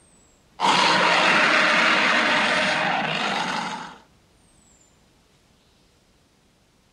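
Dinosaur roar sound effect dubbed over the stop-motion: one long, harsh roar lasting about three and a half seconds. It starts about half a second in and tails off.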